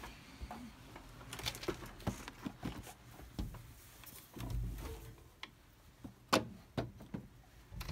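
Irregular knocks, clicks and rustles of things being handled and shifted close to the microphone, with a low rumble about halfway and a sharper knock about three-quarters through.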